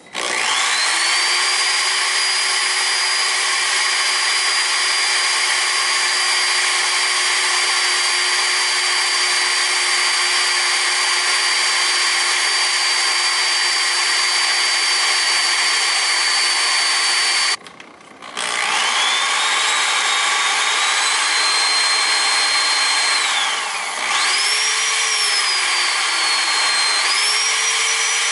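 Corded electric drill running steadily, spinning a thin metal rod in its chuck as a makeshift lathe while a hand-held file scrapes against the turning rod. The motor stops briefly about two-thirds of the way in, then runs up again, its whine dipping and recovering a couple of times near the end.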